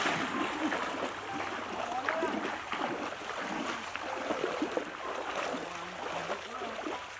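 People wading quickly through shallow stream water: continuous splashing and sloshing around their legs, a little louder in the first second.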